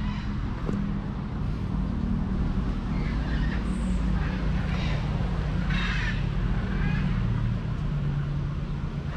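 A motor engine running steadily, a low drone that wavers slowly in pitch.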